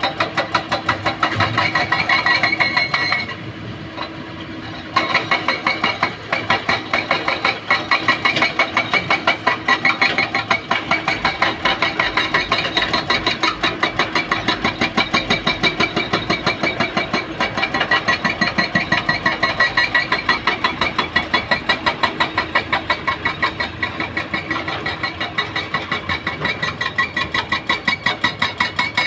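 Heavy-equipment diesel engine of an excavator running steadily, with a regular pulsing beat of about three a second. The sound drops briefly about three seconds in, then comes back at full level.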